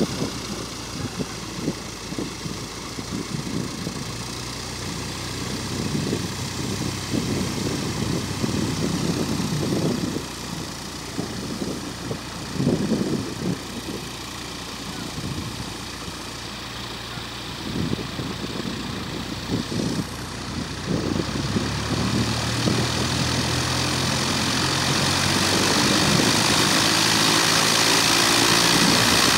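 Cessna light aircraft's piston engine and propeller running steadily at low power, with gusts of wind on the microphone. The engine noise grows louder over the last several seconds.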